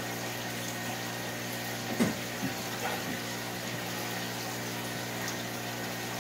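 Steady hum of aquarium filtration pumps with running water, with one sharp knock about two seconds in and two lighter ones just after, as a magnetic algae cleaner is handled against the tank glass.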